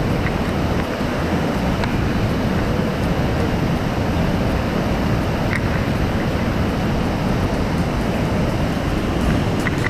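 Steady rushing of moving water, with wind on the microphone.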